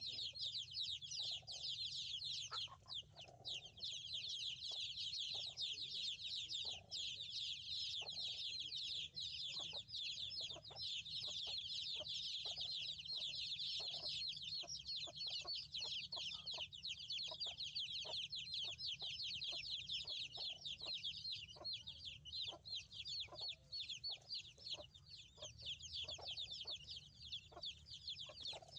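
Many small birds chirping densely and without pause in high, quick downward-sweeping notes, with short low clicks scattered through.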